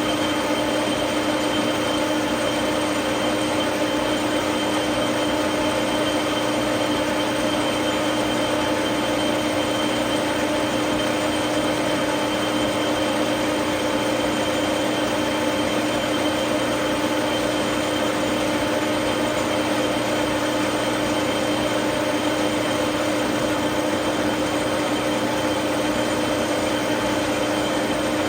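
Metal lathe running steadily: an even mechanical hum with a few constant whining tones.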